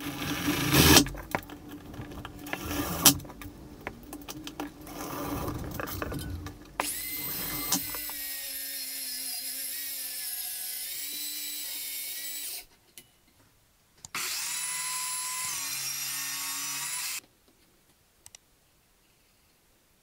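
A cordless drill-driver driving screws in short bursts among knocks and clatter, then a track saw on its guide rail runs steadily across the worktop, twice: a run of about six seconds and, after a short gap, one of about three seconds that starts with a rising spin-up. Both runs cut off suddenly.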